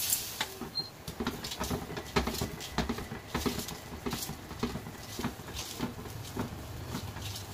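Rice-flour roti being pressed and patted with a cloth on a hot iron tawa: irregular light taps and crackles, a few each second.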